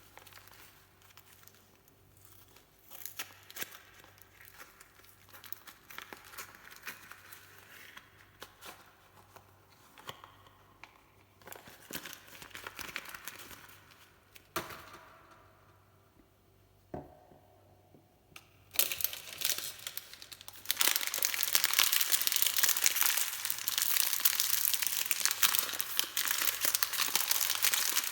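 Soap packaging being crinkled and torn open by hand. Faint, scattered crinkles at first, then, about two-thirds in, loud continuous crinkling and tearing.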